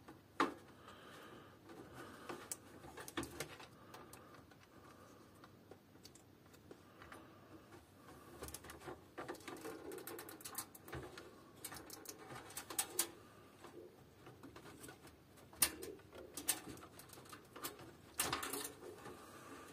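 Faint clicks and rustling of hands working in a steel PC case, fitting a stock CPU cooler with zip ties and small screws: a sharper click about half a second in, then scattered small knocks, busiest in the middle.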